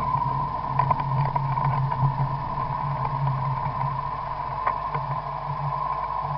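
Vehicle engine running steadily at low speed, with a steady high whine alongside and a few faint ticks.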